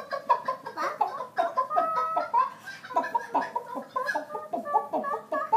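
A toddler imitating a chicken, making a fast run of short, high clucking calls.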